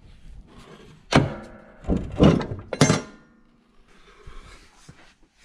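Three heavy metal knocks and clanks from the riding mower's deck hanger linkage and frame as a retaining pin is pulled and the parts are worked loose, the last with a short ring.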